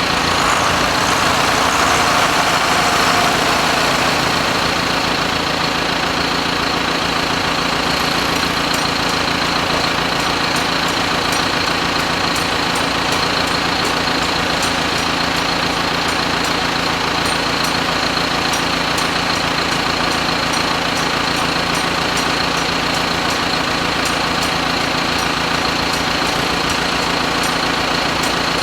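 A machine running steadily: a constant hum with a steady high whine, a little louder for the first few seconds.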